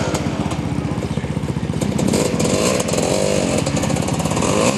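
A sport quad ATV's engine running as it comes down the slope toward the listener. About two seconds in it grows a little louder and its pitch starts rising and falling with the throttle.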